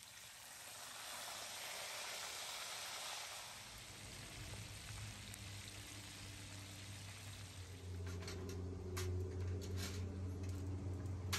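Whole fish sizzling as they fry in a pan of hot oil. About eight seconds in, the sizzle fades under a steady low hum and a few light clicks.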